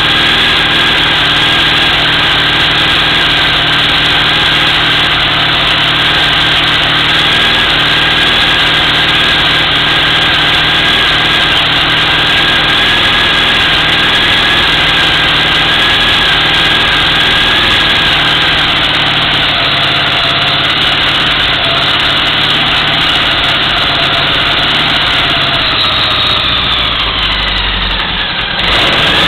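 A 1975 Honda GL1000 Gold Wing's flat-four engine runs steadily on one of its first runs after sitting dead, newly fitted with fresh timing belts. Near the end the engine speed sags briefly, then picks back up.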